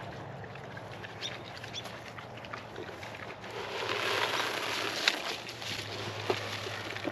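Pigs feeding from rubber pans, with small chewing and rooting clicks. About three and a half seconds in, a stream is poured into a rubber pan with a hiss lasting about two seconds. Two sharp knocks follow, a second and a bit apart.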